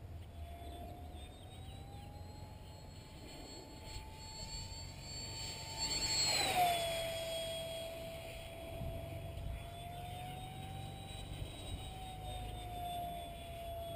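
Whine of a 70 mm electric ducted fan in a radio-controlled Me 163 Komet model jet in flight, its pitch rising and falling with the throttle. About six seconds in there is a brief loud rush of air as the pitch drops sharply.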